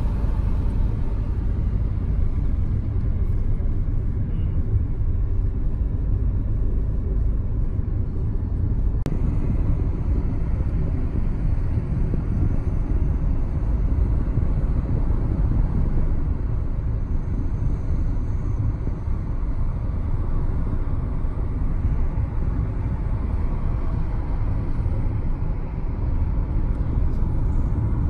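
Steady low road rumble of a moving car, heard from inside the cabin.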